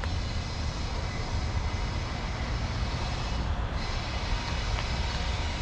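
Steady low rumbling drone of a running vehicle engine, without clear breaks or changes.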